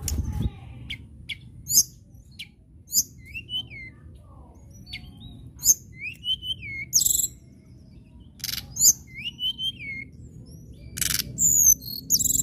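Caged blue flycatcher (tledekan) singing a varied song of short, very high, sharp notes mixed with sweet arching whistles, with a harsh buzzy note near the end. A brief thump comes right at the start.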